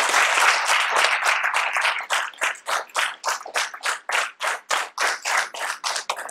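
Hand clapping: a dense burst of applause that, about two seconds in, settles into steady rhythmic clapping at about four claps a second.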